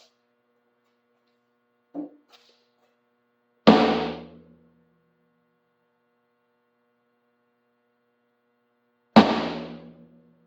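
Rack tom (tom 1 of a drum kit) struck twice, a single hit each time, about five and a half seconds apart, each ringing out with a low pitched tone for about a second. A soft knock comes shortly before the first hit.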